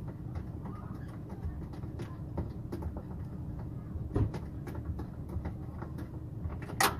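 Scattered light clicks and taps of a loosened door-handle bolt being backed out by hand and handled inside an opened car door, with a sharper click about four seconds in and another near the end, over a steady low rumble.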